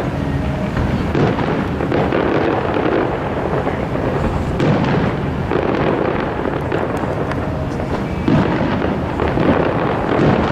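Aerial fireworks going off in a dense, continuous barrage of overlapping bangs and crackles, with no pauses between bursts.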